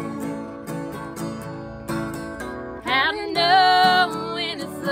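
Acoustic guitar strummed in a steady rhythm, with women's voices coming in about three seconds in on a long, held sung note.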